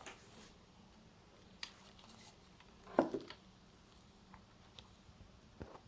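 Faint handling sounds of a USB cable being plugged into a smartphone: a few light clicks and taps, the loudest about three seconds in.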